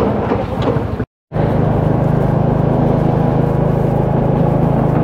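Small motorcycle engine running steadily while riding, with road and wind noise. A short dropout to silence about a second in.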